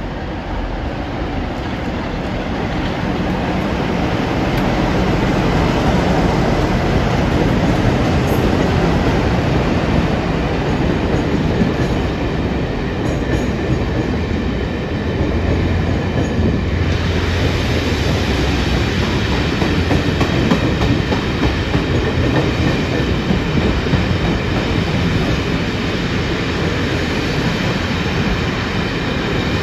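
Freight train rolling past at close range, wheels running over the rail joints, loudening over the first few seconds as it draws near. A little past halfway, thin high steady squealing tones from the wheels join in.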